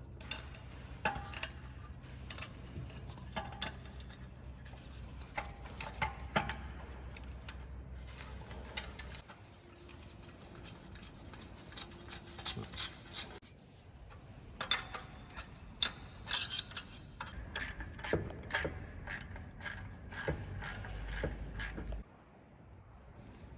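Hand tools working on bolts: scattered metallic clicks and clatter, then a quick, even run of ratchet-wrench clicks near the end as a bolt is turned down.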